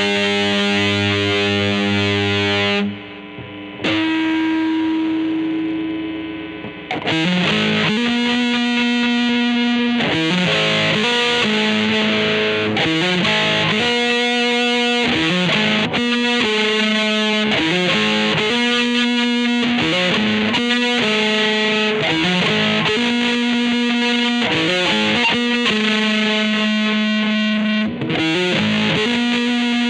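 1994 Mexican-made Fender Stratocaster electric guitar played with distortion. A chord rings for about three seconds, then a single note sustains and fades, and from about seven seconds in a repeating riff of picked notes and chords follows.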